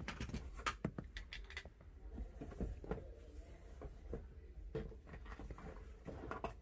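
Faint scattered clicks and light taps, irregular and short, over a low steady hum.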